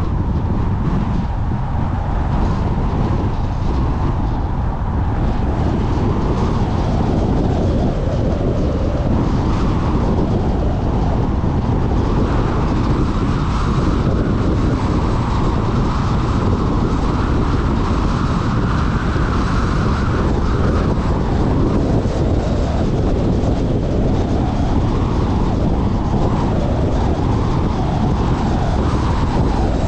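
A car driving along a paved two-lane road: a steady rumble of tyre and wind noise.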